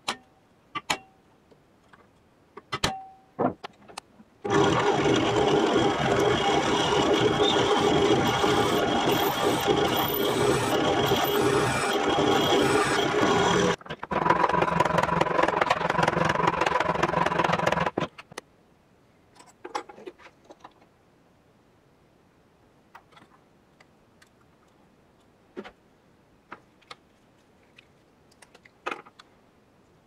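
A small power tool runs steadily against a small steel pin clamped in a vise, shaping a rounded end on it: it runs about nine seconds, stops for a moment and runs about four seconds more. A few light metal taps come before it, and only faint clicks after it.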